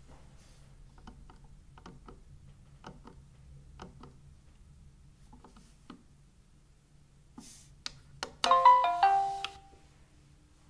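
Smeg variable-temperature electric kettle's base playing a short electronic chime of several stepped notes as it is switched on, about eight and a half seconds in. Before it come a few faint light clicks.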